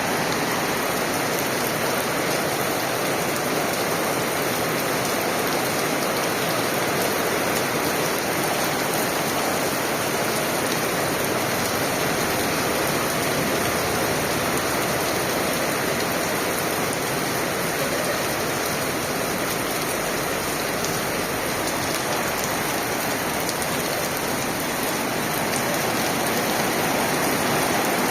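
Torrential rain pouring down steadily and without let-up.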